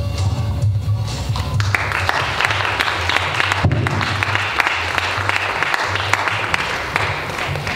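Audience applause that comes in about a second and a half in and stops near the end, over music with a steady low bass tone.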